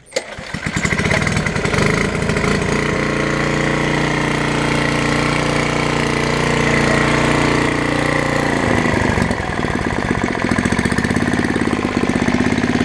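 Tecumseh H30 single-cylinder flathead four-stroke engine pull-started with its recoil cord. It catches at once and runs steadily while it warms up for carburetor adjustment. Its note changes about two-thirds of the way through.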